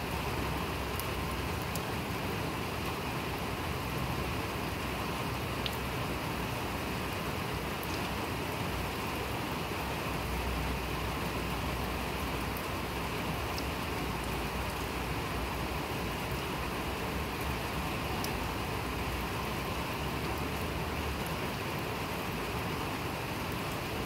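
Steady rain falling, an even hiss with scattered sharper ticks of single drops.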